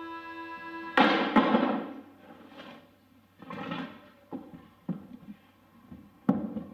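A held musical note breaks off about a second in with a loud crash that rings on briefly, followed by scattered thuds and sharp knocks on a theatre stage.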